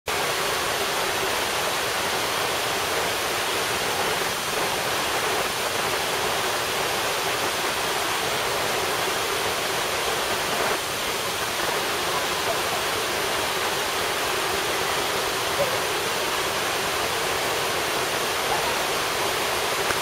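Waterfall pouring down a rock face and over a rocky cascade: a steady, even rush of falling water.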